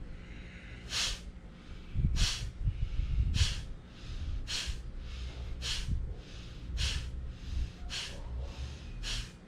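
Kapalbhati pranayama breathing: short, forceful exhalations pushed out through the nose, about one a second, eight in a row, with quieter gaps where the inhalation comes passively between them.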